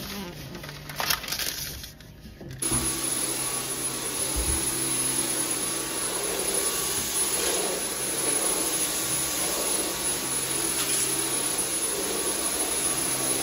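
Stick vacuum cleaner running steadily, starting abruptly about two and a half seconds in: an even rushing noise with a thin high whine on top.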